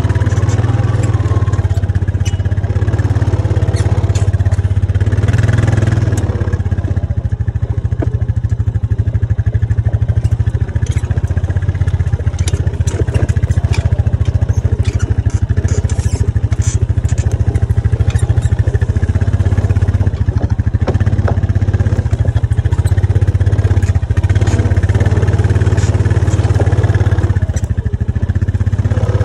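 A small vehicle engine running steadily at low speed while towing a loaded Gorilla Cart over rough ground. Scattered clicks and knocks come from the cart and its load of quarry stone jolting.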